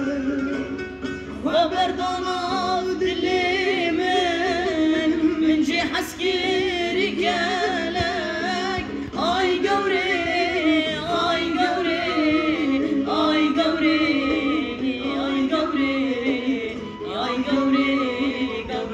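A solo voice singing a Kurdish song, the melody wavering and heavily ornamented, over a steady instrumental backing.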